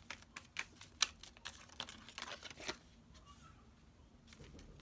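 Tarot cards being thumbed through and drawn from the deck: a quick, irregular run of sharp card clicks and snaps over the first two to three seconds, then only a few faint ticks.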